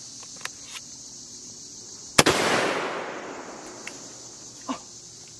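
A single shotgun shot about two seconds in, followed by a long rolling echo that dies away over about a second and a half.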